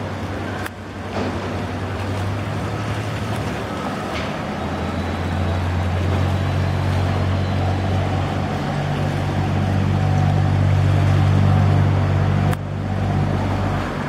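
Passenger ferry's diesel engines running with a steady low drone as it manoeuvres alongside a pier, growing louder about four seconds in and dropping back near the end, over the rush of water churned by its propellers.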